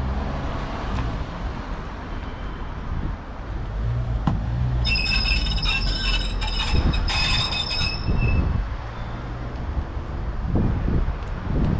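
Metal double doors squealing on their hinges as they are pushed open: a high, shrill squeal lasting about three seconds with a short break, after a sharp click. A low rumble runs underneath.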